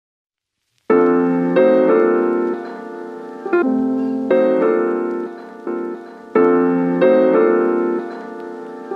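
Background piano music: ringing chords that fade between strikes, in a phrase that repeats, starting about a second in.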